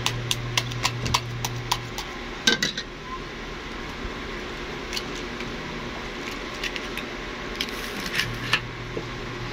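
Metal spoon tapping a raw egg to crack its shell: a quick run of sharp taps, about four a second, for the first two seconds, then a few scattered clicks as the shell is pulled apart over the bowl.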